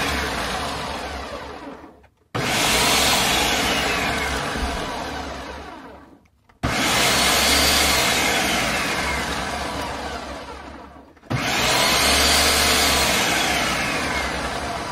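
Food processor whirring in repeated pulses as it chops a dry mix of raw walnuts, cashews and flour into crumbles. Each pulse starts abruptly and winds down over a few seconds with a falling whine. A new pulse starts about every four seconds, three times, to break up the large nut pieces still left.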